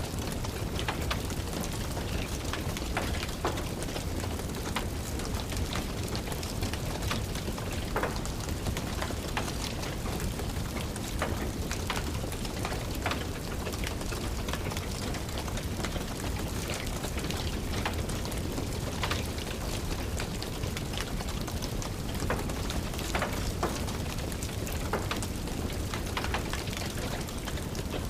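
Steady rain with a wood fire crackling: irregular sharp pops scattered over an even hiss of rain.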